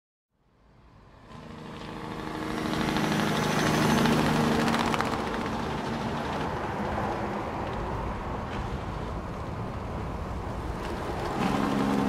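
Large truck driving, its engine hum and road noise with loosely fastened straps rattling and flapping. It fades in from silence, is loudest about four seconds in, then runs on steadily.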